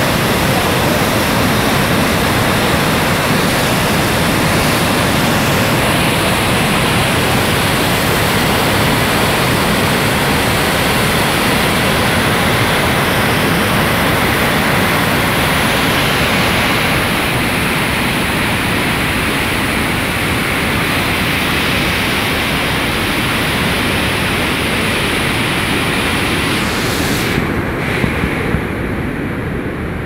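Floodwater torrent rushing, a loud, steady roar of churning muddy water. Near the end the roar turns duller and a little quieter, with a couple of brief knocks.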